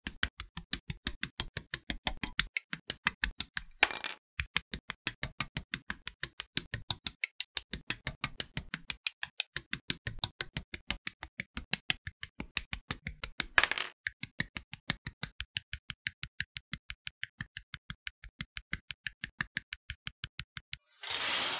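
Rapid, evenly spaced snips of side cutters clipping plastic model kit parts off their sprues, about four or five sharp clicks a second in a steady sped-up rhythm. Two brief louder crackles come about 4 and 14 seconds in, and a short burst of hiss just before the end.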